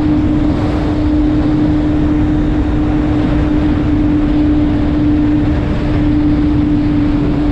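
Kawasaki Z750's inline-four engine running through an Arrow aftermarket exhaust, holding one steady, unbroken note.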